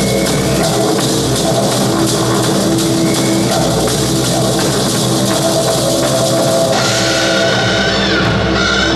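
Korean traditional percussion ensemble playing live: fast, dense drumming over held pitched tones. About two-thirds of the way in, a brighter, higher held tone joins.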